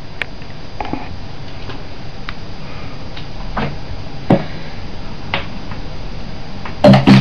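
Steady room hiss with a few faint knocks and shuffles. Music with a beat starts abruptly near the end.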